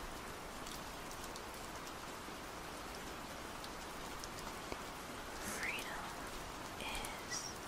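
Steady hiss of falling rain, a rain ambience bed, with a few faint soft whispery sounds near the end.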